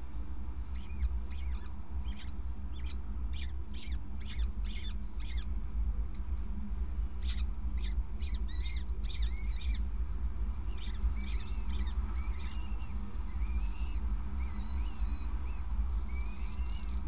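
Downy peregrine falcon chicks begging as they are fed, with many short, thin, high-pitched cheeping calls coming in clusters. A steady low rumble runs underneath.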